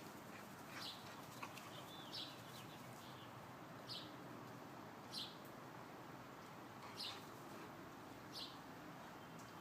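A bird chirping faintly: about six short, high chirps that fall in pitch, a second or two apart, over a quiet background hiss.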